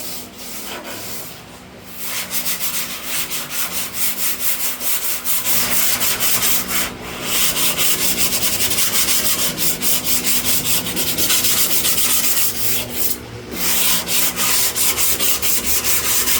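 Hand sanding of cured automotive body filler on a car panel with coarse 80-grit sandpaper: quick, even back-and-forth rasping strokes, getting heavier about two seconds in, with brief pauses about seven and thirteen seconds in.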